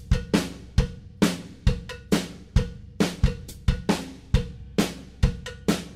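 Background music: a steady drum-kit beat of kick, snare and hi-hat.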